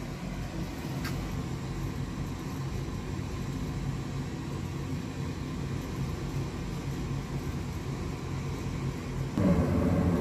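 Goodman gas furnace starting up after its power is switched back on: the draft inducer motor runs with a steady hum, with a single click about a second in, and the sound grows louder near the end.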